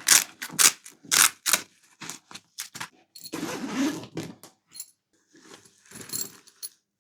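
A fabric tool bag being opened and handled, with metal hand tools clinking inside. A quick run of scrapes and clicks, then a longer rustle about three seconds in, then a few small clicks.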